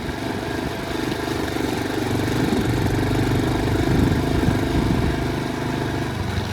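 Motorcycle engine running steadily at low revs, swelling slightly in the middle.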